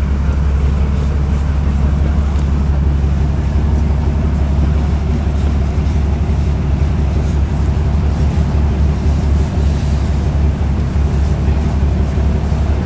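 Fire truck's engine running steadily, a deep low drone with a constant level.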